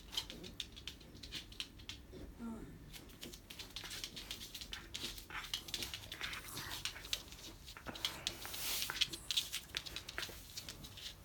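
A Shiba Inu moving about and rummaging: many quick clicks and crinkly rustling, busiest about eight to nine seconds in.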